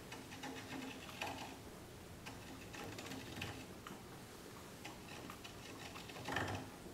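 Hand-turned flat facing cutter scraping on the steel muzzle of a rifle barrel, with faint irregular ticks and clicks as it cuts. It is the first cut on a muzzle that is out of square, so the cutter bites only on the high spot.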